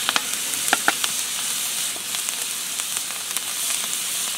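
Butter, garlic and jalapenos sizzling in a hot cast iron skillet: a steady hiss full of small crackles, with a few sharper clicks in the first second.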